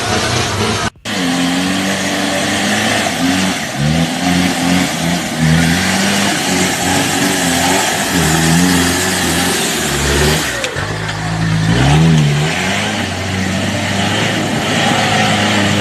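Car engine revving, its pitch rising and falling again and again as it is worked hard off-road. The sound drops out briefly about a second in.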